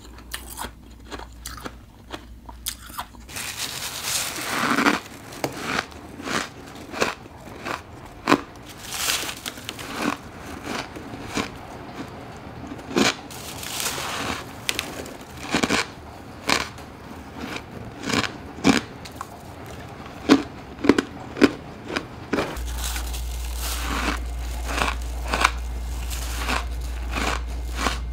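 Repeated crunching bites and chewing of powdery freezer frost, sharp crunches coming about every second. A steady low hum comes in about two-thirds of the way through.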